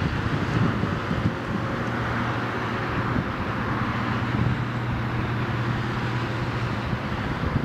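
Road traffic at an intersection: a pickup truck's engine and tyres as it drives away, over a steady low engine hum, with wind buffeting the microphone.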